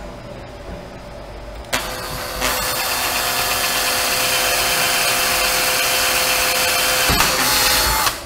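Hitachi cordless drill running with a 2.5 mm bit, drilling a pilot hole into plastic. The motor starts about two seconds in, runs steadily, shifts pitch about seven seconds in, and stops just before the end.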